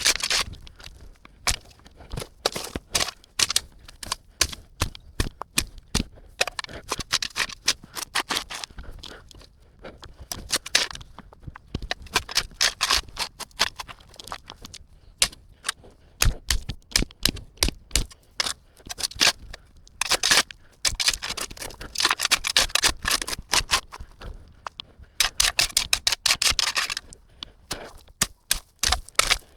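Shovel digging into soil: a rapid run of crunches and knocks, with bursts of gritty scraping as the blade is driven in and dirt is scooped.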